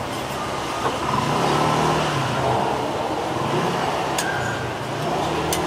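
A motor vehicle engine running in passing street traffic, its pitch wavering up and down over a steady hiss, with a couple of sharp clicks in the second half.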